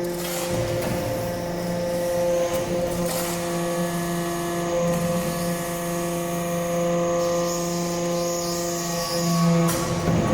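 Hydraulic power unit of a copper-chip briquetting press running with a steady hum.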